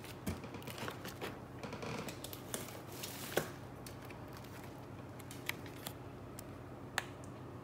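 Packaging being handled: rustling and crinkling of the box's plastic-lined insulation and a plastic meal tray as a hand rummages in a cardboard shipping box and lifts a tray out. There are light taps and clicks throughout, with a sharper click about three and a half seconds in and another near the end.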